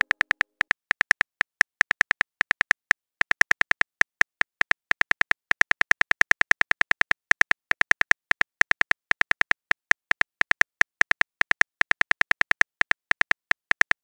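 Phone keyboard typing sound effect: rapid, evenly paced tap clicks, about five a second, with a few short pauses, as a text message is typed out letter by letter.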